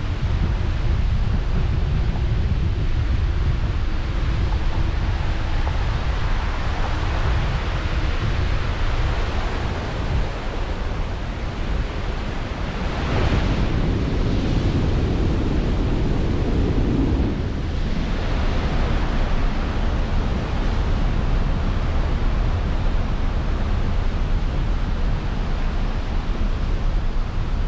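Steady low rumble and hiss of a vehicle rolling slowly along a road, with wind buffeting the microphone; a louder rushing hiss swells briefly about halfway through.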